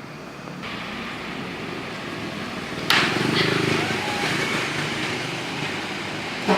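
Road traffic noise. About three seconds in, a sudden loud rush as a large vehicle, likely a bus, passes close by, with a short sharp knock near the end.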